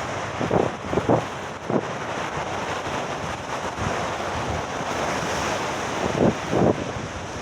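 Ocean waves breaking, with wind buffeting the microphone and a few short low thumps.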